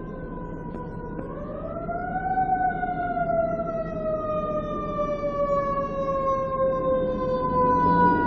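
An emergency vehicle's siren wailing slowly. Its pitch rises about a second in, then sinks gradually, and it grows steadily louder as the vehicle approaches.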